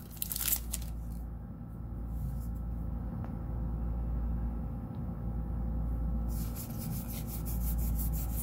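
Foil booster pack wrapper crinkling for about a second, then mostly a low steady hum. About six seconds in, playing cards start sliding and flicking as they are flipped through by hand.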